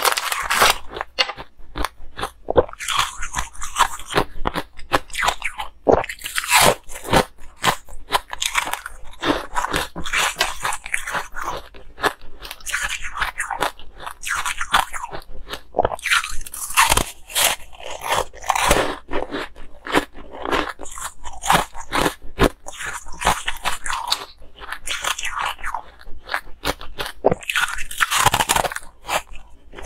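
Close-miked biting and chewing of coloured ice: rapid, closely packed crunches, one after another.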